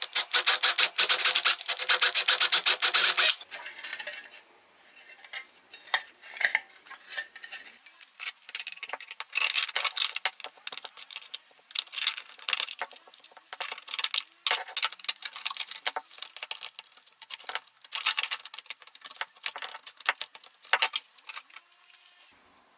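Hand work on small metal parts: a fast, even rasping for about three seconds, then irregular scrapes and light metallic clicks and clinks.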